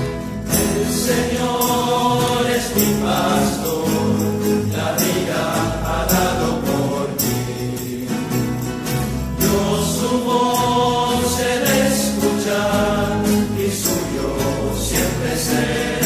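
Background music: a religious choral song, several voices singing together over a steady beat.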